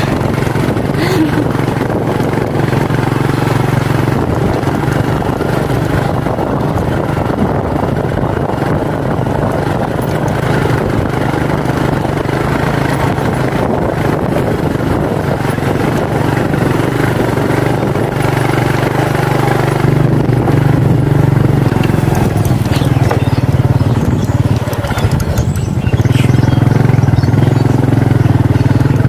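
Motorcycle engine running steadily, heard from on board while riding a rough, rutted dirt track; it gets louder twice toward the end.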